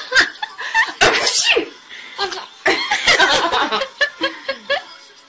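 Laughter in bursts, loudest about a second in and again about three seconds in, dying down near the end.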